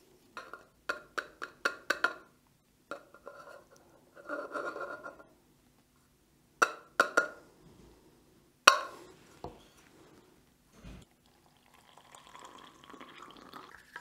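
Kinu M47 hand grinder and its metal catch cup being handled and tapped out: a quick run of sharp clicks and taps, softer scraping, then a few loud metal knocks as the ground coffee is emptied into a metal cezve. A softer hissing stretch follows near the end.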